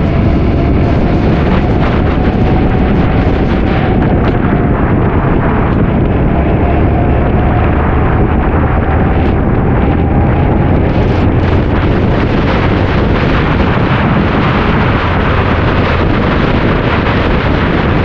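Heavy wind noise buffeting the microphone while riding a motorcycle at speed, with a faint tone in the first half that rises slowly.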